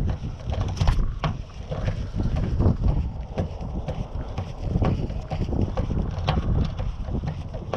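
Wind buffeting the microphone with an uneven low rumble, over scattered small clicks and taps of an Allen wrench working the service valves on a mini-split condenser.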